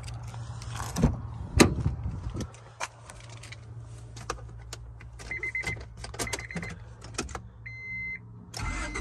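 The door of a 1997 Honda Odyssey is opened with two loud clunks about a second in, followed by small clicks and handling noises. From about five seconds in, the dashboard warning chime beeps in short runs. Near the end, the van's 2.2-litre four-cylinder engine starts up.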